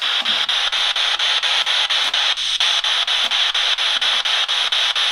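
Spirit box (a handheld radio sweeping through stations) hissing with static, chopped about five times a second as it scans.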